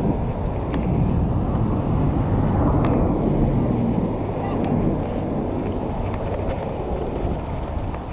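Steady wind buffeting the microphone with low rumble from riding an electric kick scooter alongside road traffic.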